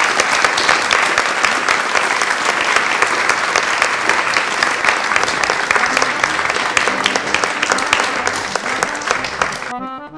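Audience applauding, many hands clapping steadily, tapering a little before it cuts off suddenly near the end.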